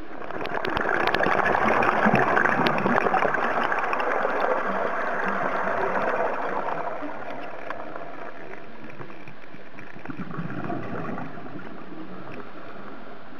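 A scuba diver's exhaled air bubbling out of the regulator underwater, one long gurgling burst lasting about six seconds, then a shorter, fainter one about ten seconds in.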